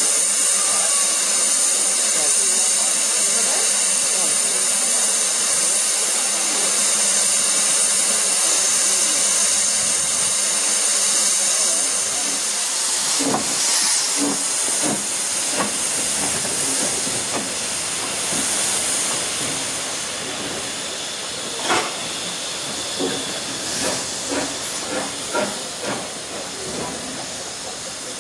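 LNER D49 three-cylinder 4-4-0 steam locomotive Morayshire hissing steam loudly and steadily. From about thirteen seconds in it moves off with a scatter of irregular knocks and clanks, and the hiss fades as it draws away.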